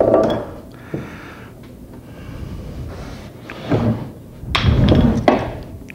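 A wooden cabinet case rocked by hand on a workbench: a few dull wooden knocks and thumps as a corner lifts and drops back, the loudest near the end. The case rocks slightly on one corner, so it is not sitting flat.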